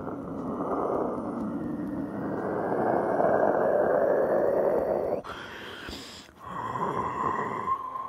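Jet engine noise from a twin-engine airliner passing overhead: a steady rushing roar. About five seconds in it drops away for about a second, then comes back with a steady high tone running through it.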